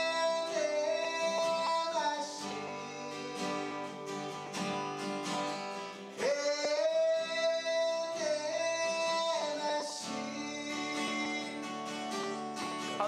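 Acoustic guitar plucked in a steady accompaniment, with long held melody notes over it: one at the start and another about six seconds in, each lasting around three seconds.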